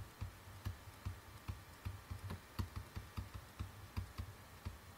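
Faint, irregular light taps and clicks, about three or four a second, of a pen writing on a tablet.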